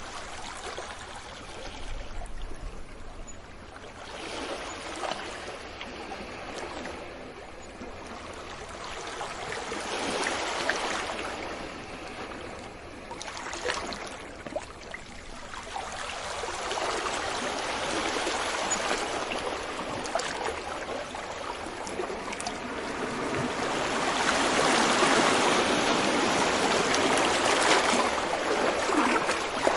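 Sea waves washing onto a beach, the rush of water swelling and fading in slow surges several seconds apart, the loudest near the end.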